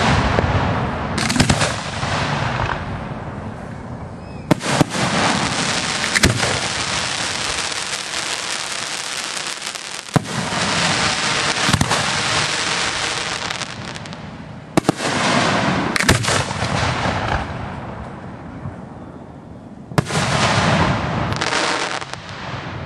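Aerial firework shells bursting overhead: about ten sharp bangs, often in pairs a second or so apart, each followed by a long noisy tail of crackle and echo.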